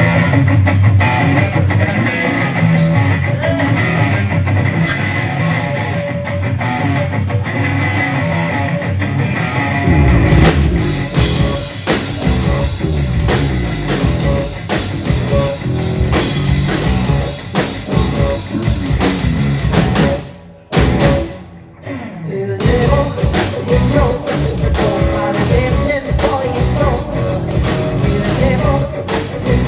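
Rock band playing live: an opening section, then the drums and full band come in about ten seconds in. Around two-thirds of the way through the band stops short for a moment, then crashes back in.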